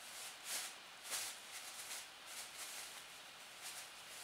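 Thin plastic bag crinkling and rustling as a kitten shifts about with its head inside it, in short irregular crackles, the two loudest about half a second and a second in.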